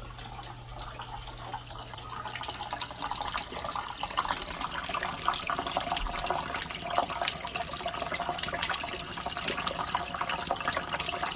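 Tap water running steadily from a faucet into a sink, left open to flush sediment from a freshly refilled water system. The flow gets louder about four seconds in.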